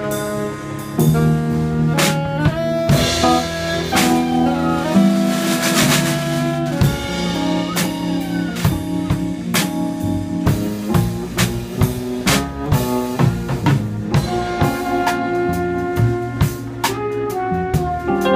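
Small jazz group playing live: trumpet and saxophone play a melody together over a drum kit, with steady drum and cymbal hits throughout.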